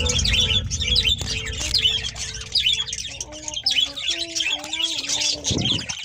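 A flock of budgerigars chattering, a dense, continuous stream of quick high chirps and warbles. From about halfway, a simple tune of stepping notes plays under the chatter.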